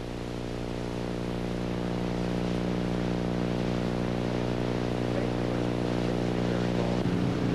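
A heavy-equipment diesel engine running at a steady low speed, a deep even drone that swells in over the first second or two and holds level, shifting slightly near the end.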